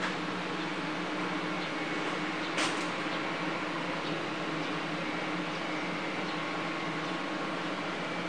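Steady mechanical hum of running machinery, with a single short click about two and a half seconds in.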